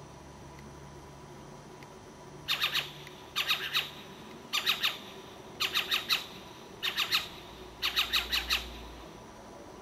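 An owl calling: six short bursts of rapid, high-pitched squawking notes, three to five notes each, about one burst a second.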